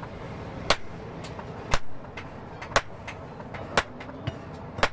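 Hammer blows on a red-hot leaf-spring steel cleaver blank on an anvil: a heavy strike about once a second, each with a brief metallic ring, and lighter knocks in between.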